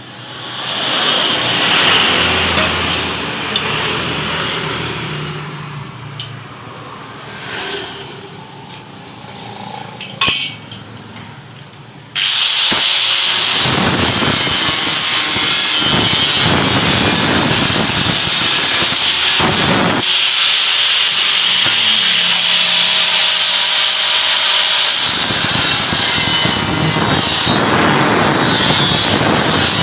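A power tool working metal: after a stretch of uneven handling noise and a few knocks, a loud, steady, harsh noise starts abruptly about twelve seconds in and keeps going.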